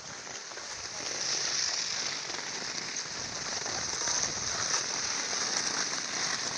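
Skis sliding over packed snow: a steady, crackling hiss that grows a little louder about a second in.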